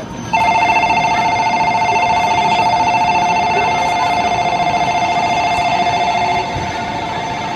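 Electronic departure bell on a Shinkansen platform, a steady trilling two-tone ring that starts about half a second in and eases slightly near the end. It signals that the train is about to depart.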